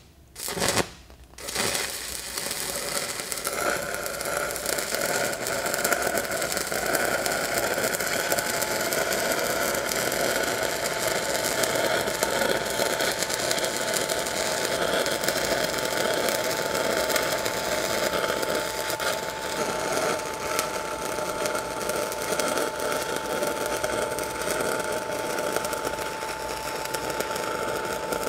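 1/8-inch E6010 stick electrode arc welding an uphill open root pass on small steel pipe: after a brief start about a second in, the arc catches and crackles steadily and densely, with a faint steady tone coming in partway. The welder later judged that the root sounded like it went in pretty good.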